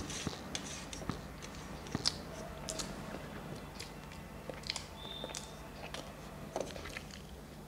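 A person chewing rice with open-mouthed wet smacks and clicks, with fingers scraping food off a stainless steel plate.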